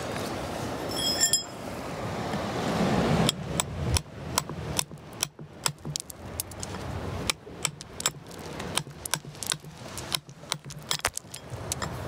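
A pointed metal tool chipping and scraping at a rock slab to expose a belemnite, making an uneven run of sharp metallic clicks and chinks, several a second. The clicks start about three seconds in, after a stretch of steady rushing noise.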